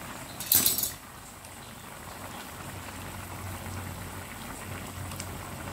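Bamboo-shoot stew simmering in a wok, bubbling as it comes to the boil, with a short loud burst of noise about half a second in.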